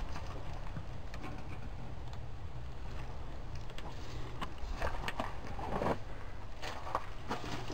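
Footsteps crunching and snapping on debris, scattered sharp cracks that come thicker about four to six seconds in, over a low steady rumble.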